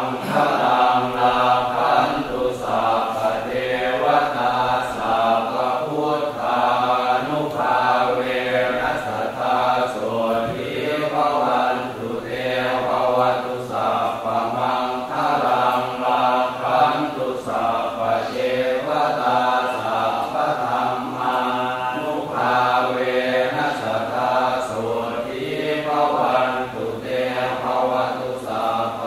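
Thai Buddhist chanting (suat mon): voices reciting Pali in a steady, unbroken recitation.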